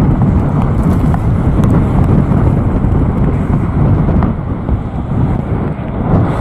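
Storm-force wind buffeting the microphone: a loud, low rumbling noise that swells and dips with the gusts.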